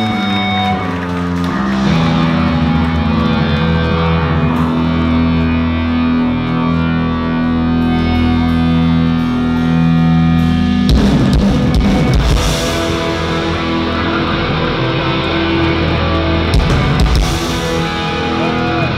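Hardcore punk band playing live: electric guitars ring out long held chords, then about eleven seconds in the drums and full band come in hard, with cymbal crashes.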